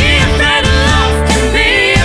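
Background song playing, with a singing voice over a steady bass line and accompaniment.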